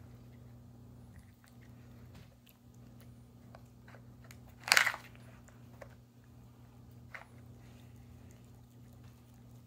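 Saluki nosing the plastic sliding lids of a puzzle feeder and crunching the treats it finds: scattered small clicks and crunches, with one louder crunch about five seconds in.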